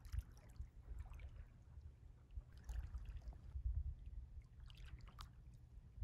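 Small lake waves lapping against shoreline rocks in short, irregular splashes, over a low wind rumble on the microphone.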